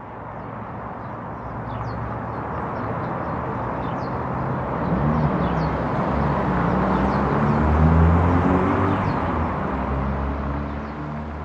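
Outdoor town ambience: a steady rush of distant traffic with small birds chirping high above it and, from about five seconds in, a low engine hum that shifts in pitch. The whole bed swells up and eases off again near the end.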